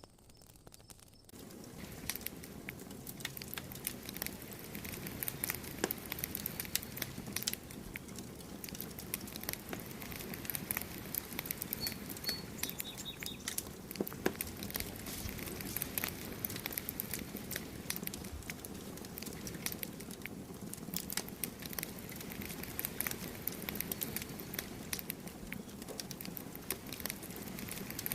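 Wood campfire crackling: a steady run of quick, irregular pops and snaps over a low hiss. The crackling comes up about a second and a half in.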